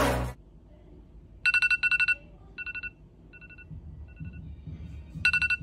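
iPhone alarm going off: short bursts of rapid beeping at one steady pitch, a loud pair of bursts about one and a half seconds in, fainter bursts after that, and loud bursts again near the end.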